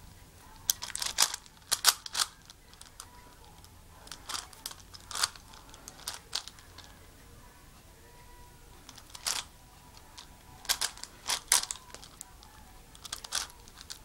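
Plastic 5x5x5 Rubik's cube having its layers turned by hand: irregular runs of quick clicks and clacks, with short pauses between the runs.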